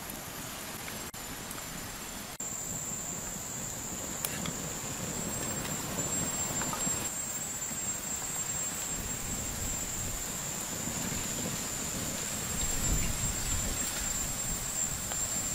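Outdoor ambience: a steady high-pitched insect drone over a soft even hiss, getting a little louder a couple of seconds in, with a brief low rumble near the end.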